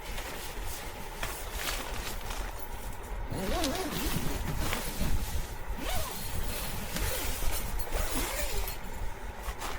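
A tent door zipper being worked, with nylon fabric rustling and handling noise.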